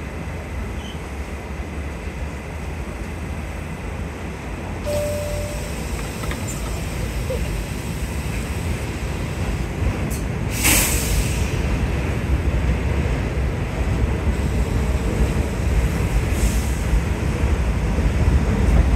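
R68A New York City subway train standing at an elevated platform with a steady low hum and rumble. About ten seconds in comes a short burst of hissing air, and the rumble then builds as the train pulls out.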